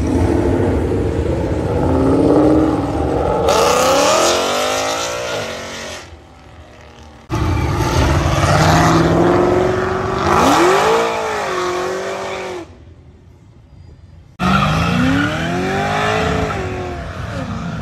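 Muscle car engines revved hard during three donuts in turn, the pitch climbing and falling over the hiss and squeal of spinning tyres. The sound cuts out abruptly twice between the clips.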